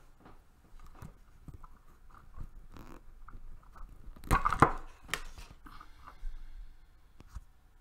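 Scattered small clicks and knocks, with a louder cluster of knocks about four and a half seconds in.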